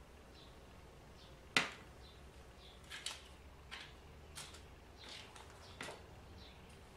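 Handling noise from a small sewing-machine motor armature and its metal fan and washers: one sharp click about a second and a half in, then a string of lighter clicks and taps as the parts are moved about on the table.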